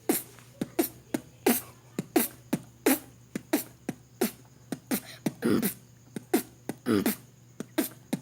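A person beatboxing a steady beat: mouth-made bass-drum hits that drop in pitch alternate with sharp snare and hi-hat hits, about two to three a second.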